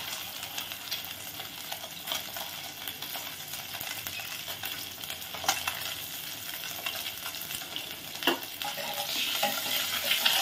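Boiled duck eggs sizzling steadily in hot mustard oil as they brown, with a couple of sharp clicks of a metal spatula against the pot.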